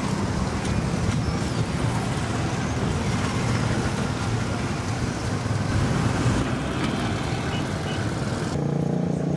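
Street traffic: motorcycle tricycles passing with their small engines running, over a steady traffic hum.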